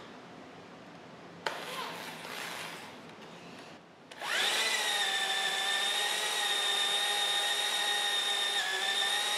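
An electric drill starts about four seconds in and runs steadily with a high whine, its bit down a lifter bore of a Model T Ford engine block, boring out the valve guide to line it up with the lifter bore. Before it, a knock and some handling noise about a second and a half in.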